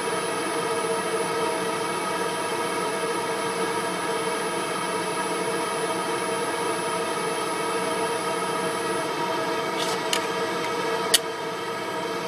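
20-watt fiber laser marker running with a steady hum, and a high thin whine while it marks a plastic tag; the whine stops about nine seconds in as the marking ends. A few light clicks follow, then one sharper click near the end as the tag is handled.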